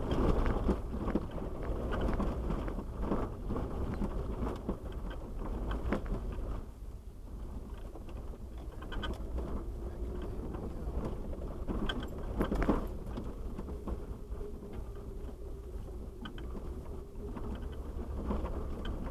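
2001 Jeep Wrangler TJ crawling over a rocky dirt trail, heard from inside the cabin: a steady low engine and tyre rumble with scattered knocks and rattles as the wheels go over stones.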